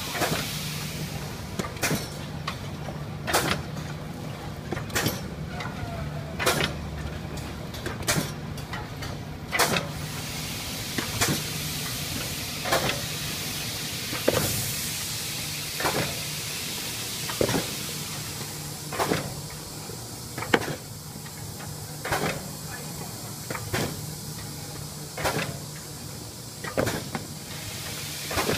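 Big-box cellophane overwrapping machine running, a sharp clack of its mechanism about every one and a half seconds over a steady hum as it cycles box after box. A hiss rises at the start and again about halfway through.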